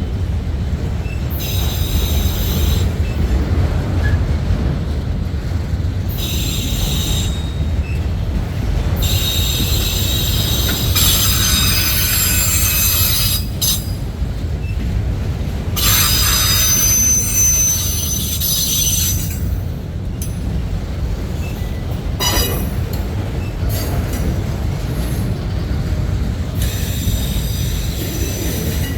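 CSX freight train cars rolling past with a steady low rumble, their wheels squealing in high-pitched stretches that come and go every few seconds. A single sharp clack sounds about 22 seconds in.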